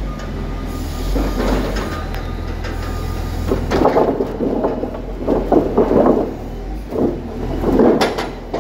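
A Caterpillar 924H wheel loader's diesel engine runs steadily while its log grapple digs into and grips a stack of treated wood poles on a rail cart. The grapple and logs give several rough bursts of scraping and grinding.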